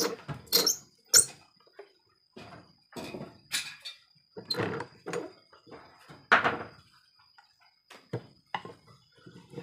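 A heavy wooden beam being slid, knocked and lifted on the metal table of a wood-mortising machine: about a dozen irregular knocks and scrapes, the loudest about a second in and again about six seconds in.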